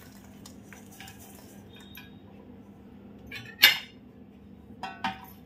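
Stainless-steel utensils clinking as grated jaggery is tipped from a steel bowl into a steel pressure cooker of cooked chana dal: a few faint taps, one sharp metallic clink a little past halfway, and two smaller ones near the end.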